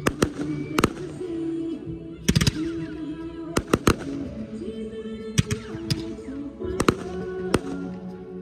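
Fireworks going off during a pyromusical show: a dozen or so sharp bangs, several in quick pairs, over the show's music playing steadily underneath.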